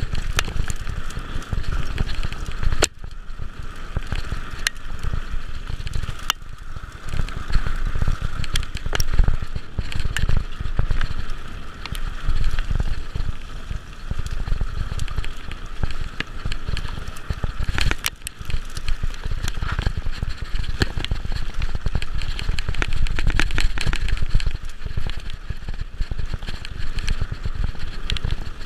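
Mountain bike riding fast down a rough dirt singletrack: wind buffeting the bike-mounted microphone and tyres rumbling over the ground, with the bike rattling and knocking sharply over bumps now and then.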